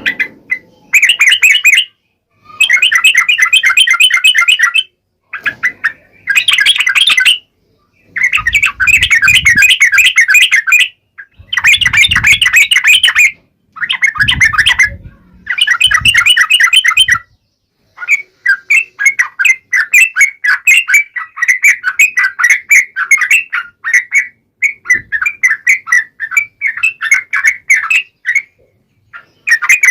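Yellow-vented bulbul (trucukan) singing loudly in bursts of rapid bubbling chatter, each a second or more long with short pauses between, running on without a break through the second half.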